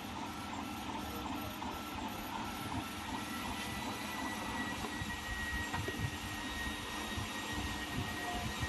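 Mini 3020 CO2 laser engraver running while it engraves a rubber stamp: a steady machine hum with faint high tones from its moving parts.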